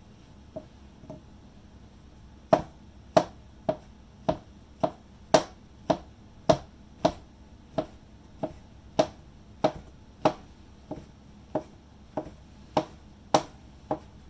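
Kitchen knife chopping through shiitake mushrooms onto a cutting board: two light taps, then from about two and a half seconds in a steady run of about twenty sharp knocks, a little under two a second.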